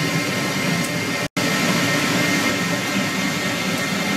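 Victor metal lathe running, turning a metal blank for a machine foot: a steady machine noise with a thin, high, steady whine. It drops out for an instant about a second in.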